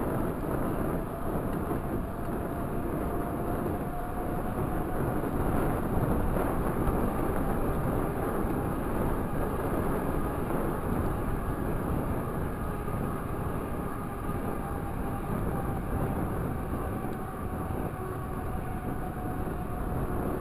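Steady wind noise buffeting the microphone of a handlebar-mounted camera, over the rumble of a Raleigh Talus 29er mountain bike's tyres rolling on asphalt, with a faint steady hum from the tyres.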